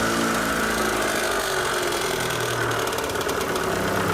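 A high-mileage car engine just after a cold start, running at idle with a rattling clatter from the cylinder-head valvetrain (valves, valve springs, camshaft). This is typical of oil not yet reaching the top of the engine, and a sign of severe wear; the clatter stops once the oil pressure builds.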